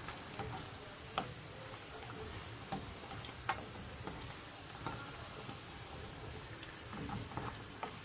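Sliced button mushrooms frying gently in oil in a non-stick pan on low heat, browning slowly. It makes a soft steady sizzle with scattered crackles and pops.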